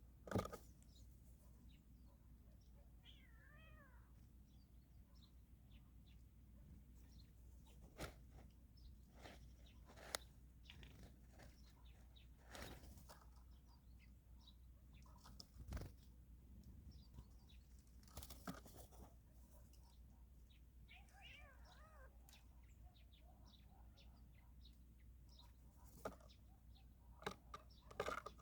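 Two faint, wavering animal calls, one a few seconds in and one about twenty seconds in, among scattered soft taps and clicks.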